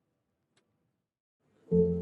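Near silence, then background music with held notes starts abruptly near the end.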